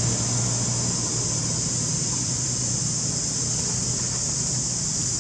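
Steady outdoor background noise: a constant high hiss over a low hum, with no distinct calls or knocks.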